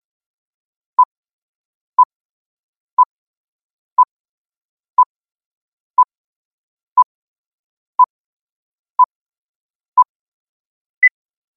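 Film-leader countdown beeps: ten short, identical beeps once a second, then a single higher beep about a second later.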